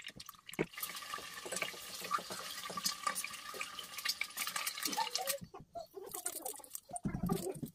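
Peeled boiled eggs frying in hot oil in a nonstick pan: a steady crackling sizzle. About five seconds in the sizzle thins out and a few knocks and a dull thump follow as the pan is handled.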